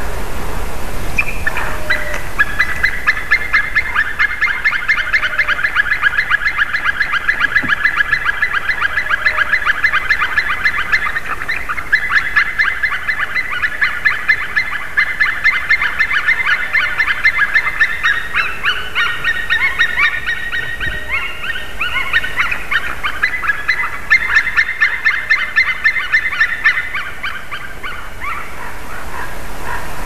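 Two grey-headed woodpeckers singing, their phrases of quick, repeated whistled notes overlapping almost without a break, then fading out near the end.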